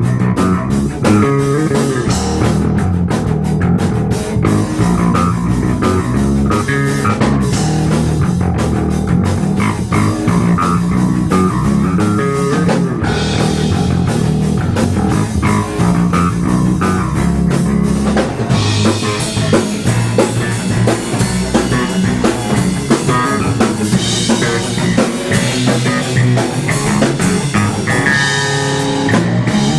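Rock music played on guitar, bass and drum kit. The cymbals and high end get fuller about two-thirds of the way through.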